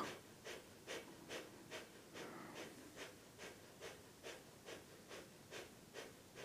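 Breath of fire, the Kundalini yoga rapid belly breath: faint, quick, even breaths pumped out at about two to three a second.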